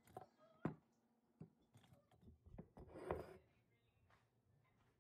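Near silence with a few faint taps and knocks as celery stalks are stood up in a glass mason jar on the countertop, the clearest under a second in and a small cluster about three seconds in.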